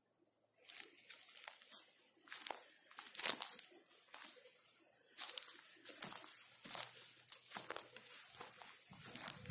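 Footsteps crunching on a dry forest floor of pine needles, twigs and lichen: an uneven run of crackling steps that starts about half a second in.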